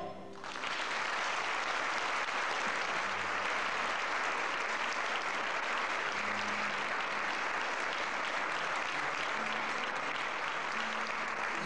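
Audience applauding steadily. The string band's music cuts off about half a second before the clapping starts.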